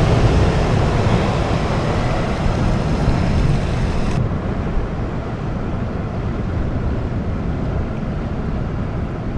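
Ocean surf breaking and washing over rocks as a steady rushing hiss, with wind rumbling on the microphone. About four seconds in the hiss turns duller.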